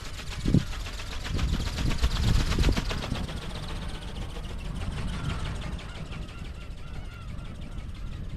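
Film wings of an RC butterfly ornithopter flapping in a rapid, even clatter that is loudest two to three seconds in, then fades, with strong wind rumbling on the microphone.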